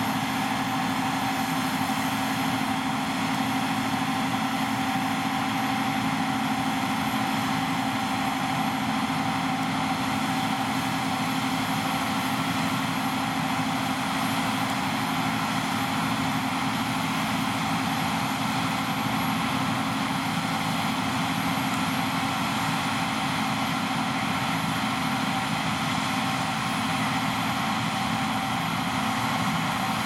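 Two John Deere T560 combine harvesters and a tractor running together while the combines unload grain into a trailer, giving a steady machinery drone with a constant higher whine.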